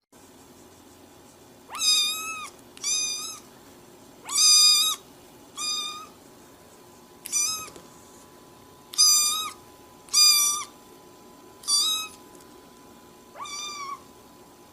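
A cat meowing repeatedly, nine short high-pitched meows about a second or so apart.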